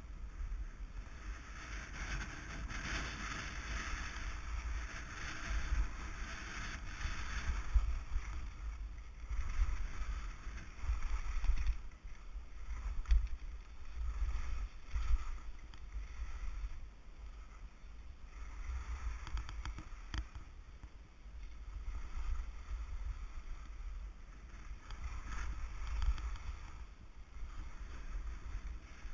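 Skis sliding and scraping over packed snow on a downhill run, the hiss swelling and fading with each turn, over a steady low wind rumble on the microphone.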